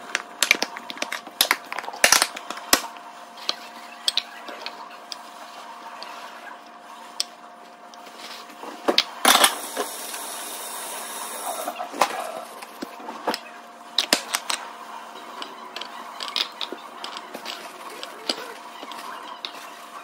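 Glass food-storage containers and their bamboo lids clinking, tapping and knocking on a kitchen countertop as fruit is packed into them, with a louder clatter about nine seconds in followed by a short hiss.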